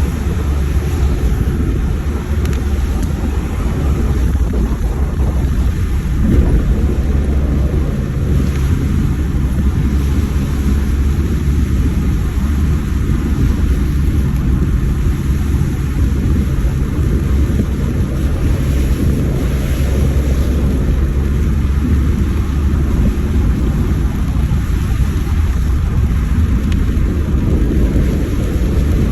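Steady low rumble of a vehicle driving, heard from inside: engine and road noise with no change in pace.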